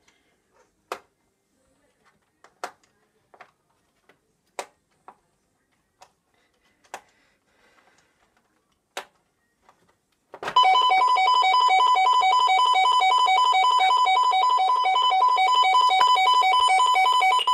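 Scattered light clicks as the bell box's cover screw is worked loose, then about ten seconds in the ADE Optima Compact alarm sounder suddenly goes off: a loud, rapidly pulsing electronic siren of several high tones. The alarm has been tripped into tamper mode by the cover coming off.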